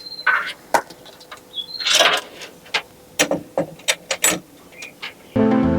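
Scattered clicks, taps and light clinks of metal and plastic computer parts being handled while a CPU air cooler is fitted. Background music starts abruptly near the end.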